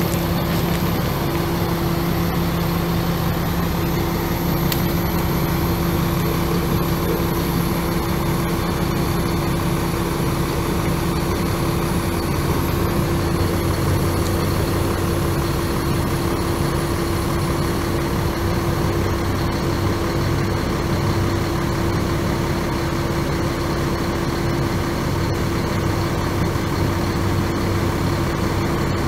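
A 2001 Chevrolet C8500 truck's Caterpillar C7 inline-six turbo diesel engine running steadily, a continuous hum with a held tone, shifting slightly in its lower notes about twelve seconds in.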